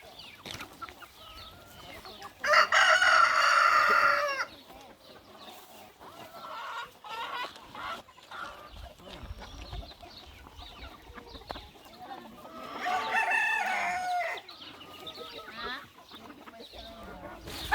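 A rooster crows loudly about two and a half seconds in, and a second, quieter crow follows about ten seconds later, while hens cluck softly in between.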